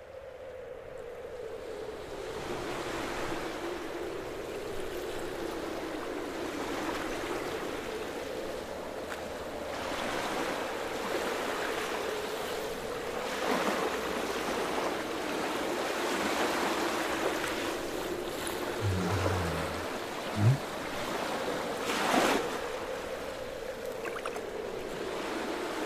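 Sea waves washing gently, fading in from silence and swelling and easing in slow surges over a steady low drone. Near the end a short sharp thump and then a brief splash of water.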